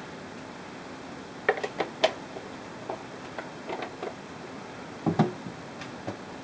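Light clicks and knocks of spice jars being handled, in a cluster about a second and a half in and another about five seconds in, over a faint steady hiss.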